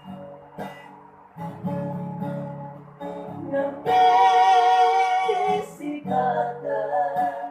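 Acoustic guitar being strummed under a singing voice; about halfway through, the voice holds one long, loud high note that bends down at its end.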